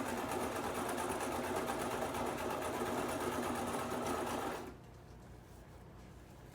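Brother sewing machine running at speed, stitching hair wefts onto a wig cap with a fast, even rhythm, then stopping suddenly about two-thirds of the way through.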